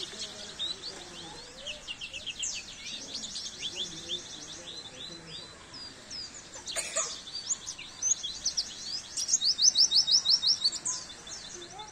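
White-eye (pleci) singing: a continuous chatter of fast, high trills and twittering notes, loudest in a quick run of rapid notes a little after the middle. A single sharp click comes about seven seconds in.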